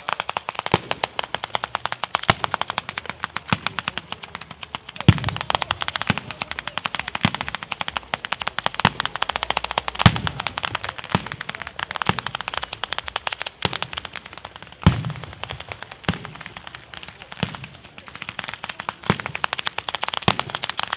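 Ground-level fireworks barrage: an unbroken, rapid string of firecracker bangs, with three heavier, deeper booms about five seconds apart.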